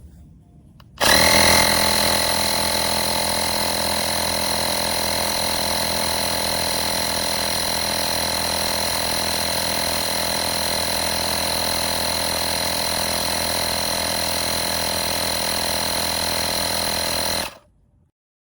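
AstroAI 12 V portable air compressor (tyre inflator) running: its small motor and piston pump drone steadily, starting about a second in and cutting off suddenly shortly before the end.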